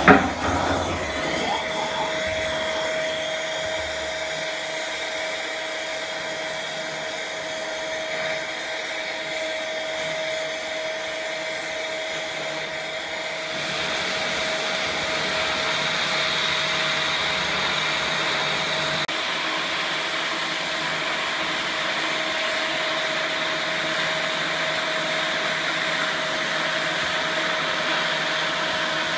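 Steady, loud rushing of blown air with a steady whine through it, opening with a sharp pop and turning brighter and hissier about halfway through.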